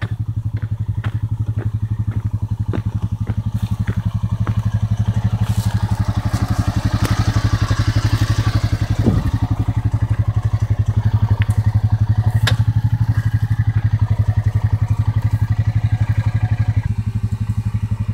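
Honda TRX420 4x4 quad's single-cylinder four-stroke engine idling steadily, with some crunching and scraping in the middle.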